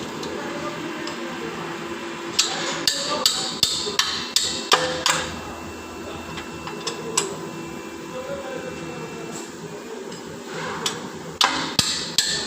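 Hammer blows during rear axle work: a quick run of about eight strikes between two and five seconds in, a single strike about seven seconds in, and another quick run near the end.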